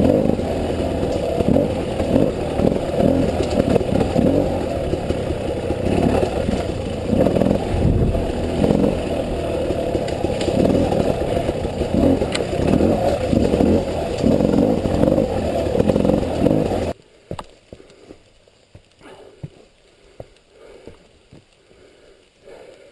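A 300cc two-stroke enduro motorcycle engine running and revving unevenly, then cutting off suddenly about three-quarters of the way through. Faint scattered clicks and ticks follow.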